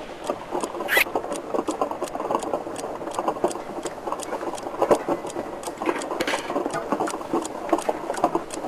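Rapid, uneven mechanical clicking and rattling, with a brief higher squeak about a second in and another near the six-second mark.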